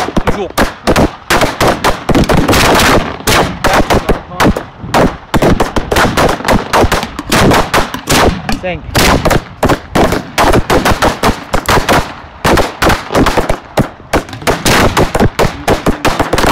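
Fireworks firing at close range from racks of tubes on the ground: a dense, continuous run of sharp bangs, several a second.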